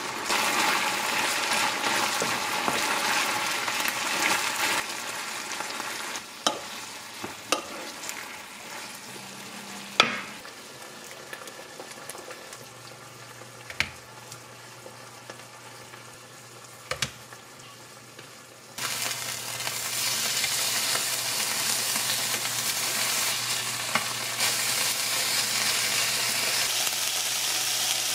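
Food sizzling in a hot pan: vegetables going into a simmering spicy potato braise. After a quieter stretch with a few sharp clicks, it gives way to loud, steady sizzling as flounder fillets fry in a square frying pan.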